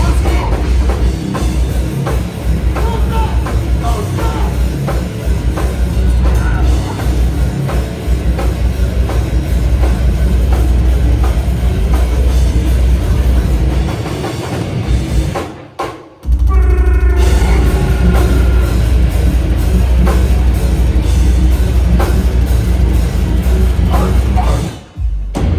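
Slam death metal band playing live, with heavy distorted guitars, bass and pounding drums. The band stops dead for a moment about fifteen seconds in, crashes back in, and cuts off again just before the end.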